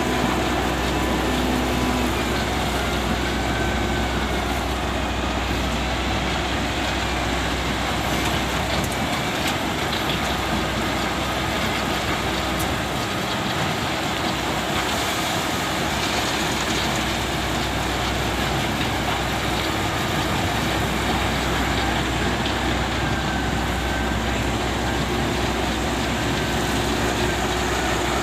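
SDLG excavator's diesel engine running steadily as it works, loading a dump truck. The deep low drone eases for several seconds midway, then comes back.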